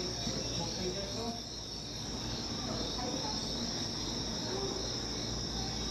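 A steady, high-pitched insect chorus, cricket-like chirring, with faint voices in the background.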